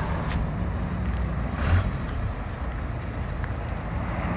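Toyota 14B four-cylinder diesel engine of a 1992 Toyota Dyna fire truck running with a steady low rumble, with one brief louder burst about two seconds in.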